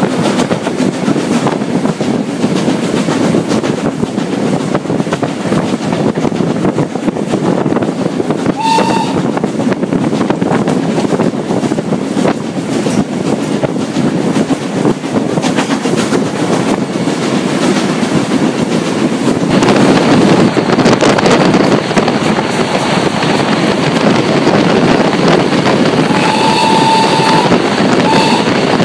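GNR(I) V class compound 4-4-0 steam locomotive hauling its train at speed, heard close up from a carriage window: a steady rush of running noise, wheels and wind, a little louder about two-thirds through. The locomotive's whistle sounds a short blast about a third in, then a longer blast and a short toot near the end as the train approaches a station.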